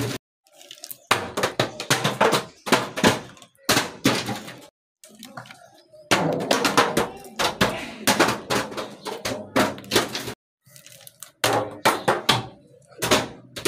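Plastic soda bottle tumbling down stone steps: a quick, irregular run of hollow thunks and knocks as it strikes step after step, broken off by a few sudden silences.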